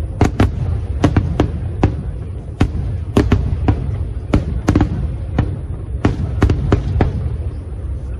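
Fireworks bursting in quick irregular succession, about two to three sharp bangs a second over a continuous low rumble.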